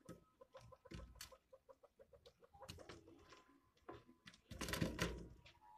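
A quail giving a rapid run of soft clucking calls while pecking at a locust on a concrete floor, with sharp pecking taps. A louder rustling bump comes near the end.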